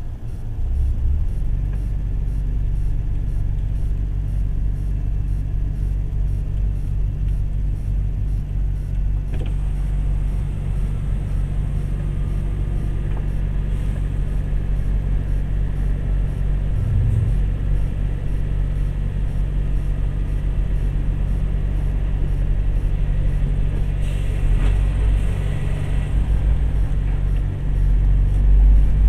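A lorry's engine and road noise while driving at low speed: a steady low rumble, growing a little louder near the end.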